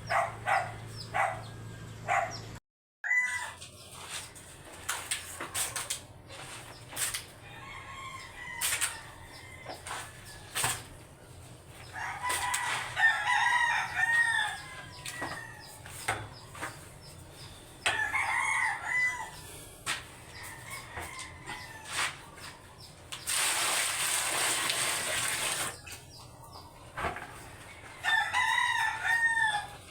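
Roosters crowing several times, each crow a drawn-out call of a second or two, with scattered clicks and knocks between. About two thirds of the way through comes a steady hiss lasting a couple of seconds.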